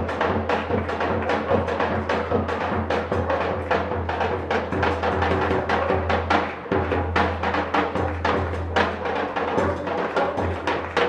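A chinchinero's bass drum and cymbals playing a fast, steady rhythm, about four strokes a second, heard from high above the street.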